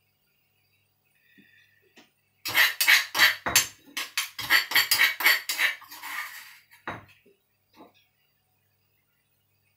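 A quick run of sharp clinks and knocks, about three or four a second for some four seconds, then one more: a metal spoon striking a stone mortar as curry paste is worked in it.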